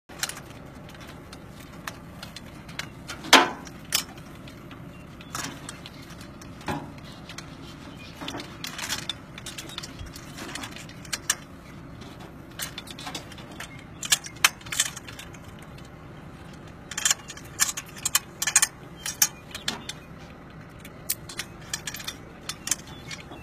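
Irregular metallic clinks, clicks and rattles of transmission-line hardware (clamp, shackles and rigging) being handled with gloved hands, over steady background noise; the sharpest clank comes a little over three seconds in, with busier clusters of clicks past the middle.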